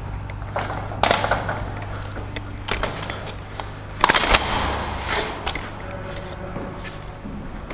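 Footsteps scuffing on a gritty concrete floor and the rattle of gear as an airsoft player creeps through a building, with scattered sharp clicks and a tight cluster of knocks about four seconds in, over a steady low hum.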